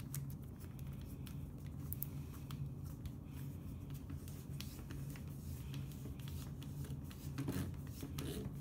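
Quiet handling: light clicks and rubbing as fingers work thin wire into the chuck of a cordless drill, over a low steady hum. The drill motor is not running.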